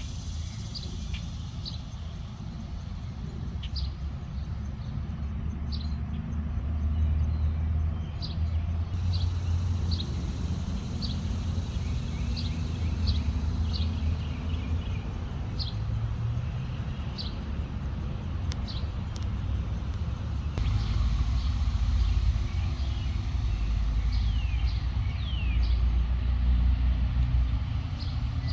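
Outdoor garden ambience: a steady low rumble, with birds giving short chirps throughout and a few falling calls near the end, over a thin steady high-pitched tone.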